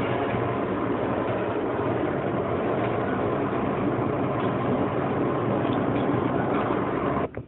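Steady engine and road noise heard inside a Hyundai i10's cabin while driving, cutting off abruptly near the end.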